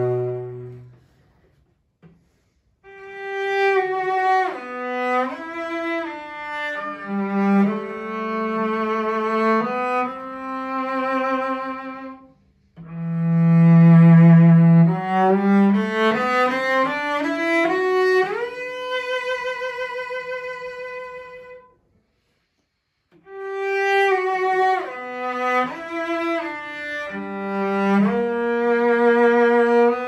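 A 1923 Joseph Müller cello from Bohemia, played solo with the bow in melodic phrases with vibrato. The playing breaks off briefly about two seconds in and again near the middle. A rising run leads to a held high note that fades out about three-quarters of the way through, and then the playing resumes.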